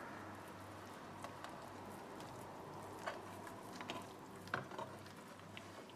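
Faint handling sounds of a filled omelette being rolled by hand in a nonstick frying pan: soft shuffling with a few small taps, over a low steady hum.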